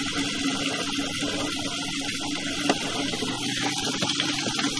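Steady rush of running water with a low steady hum underneath, and a single click about two and a half seconds in.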